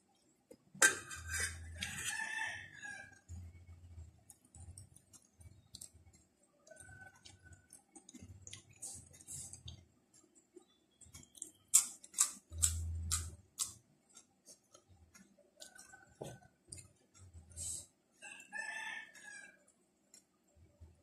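A rooster crowing twice, about a second in and again near the end. Close-up eating sounds run through it: crisp clicks and crunches of raw leaves and cabbage being chewed, and soft low mouth thumps.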